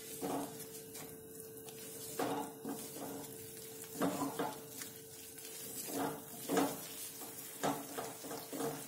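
Wooden spatula stirring and scraping a paste of maida flour and ghee around a steel kadai, in uneven strokes about once a second, over a faint sizzle: the flour is being roasted in ghee on a low-to-medium flame.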